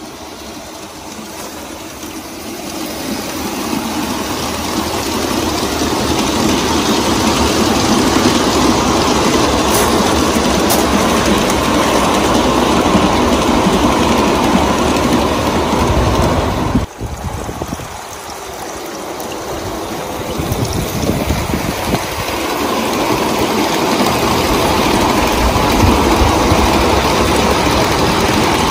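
A G scale model freight train running with its locomotive sound unit switched off: a steady mechanical whir of motor and gears, with wheels rolling on the rails. It grows louder as the train comes close, breaks off briefly about two-thirds of the way through, then builds again.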